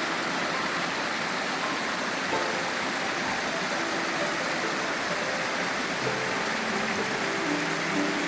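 Steady rush of a fast-running mountain stream. From about two seconds in, soft sustained low notes of background music sound under the water.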